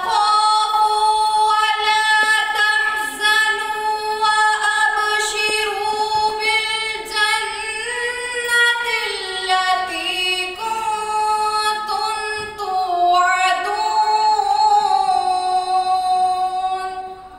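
A woman's voice reciting the Quran in a melodic chant, drawing out long held notes that slowly rise and fall in pitch, and stopping near the end.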